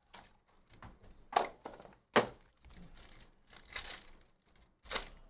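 A foil-wrapped trading card pack being torn open and crinkled by hand, with sharp knocks about a second and a half and two seconds in.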